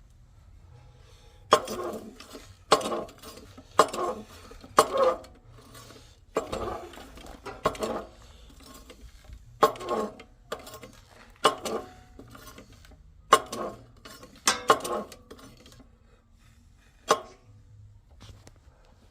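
Steel on steel: about a dozen sharp metallic clanks, each ringing briefly, at irregular intervals about a second apart, while a stuck steel forklift fork extension is worked free with a hydraulic jack.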